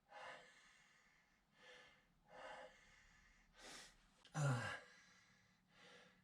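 A man's heavy, laboured breathing close to the microphone: short breaths about once a second, with one louder voiced sigh-like breath about four and a half seconds in. He puts his breathing trouble down to problems with his lungs.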